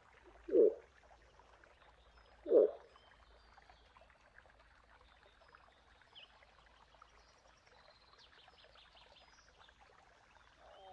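Moose giving two short grunts about two seconds apart, with faint bird chirps behind.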